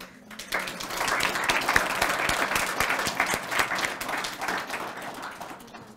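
Audience applauding a named award winner. It starts about half a second in and slowly dies away toward the end.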